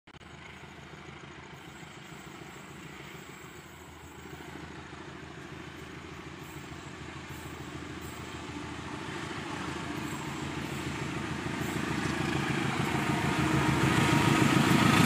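Diesel-electric locomotive hauling a passenger train as it approaches. Its engine's steady drone grows louder throughout as the train draws near.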